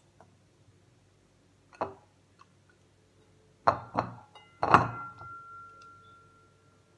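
Knocks of a carrot, a jicama and a vegetable peeler against a bowl as they are handled. There is one light knock about two seconds in, two sharp knocks near the middle, then the loudest one, after which the bowl rings with a clear tone for about two seconds.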